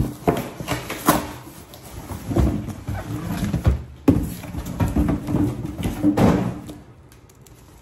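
Large cardboard box being handled on a counter: repeated thumps, knocks and scraping as it is set down and moved, stopping about seven seconds in.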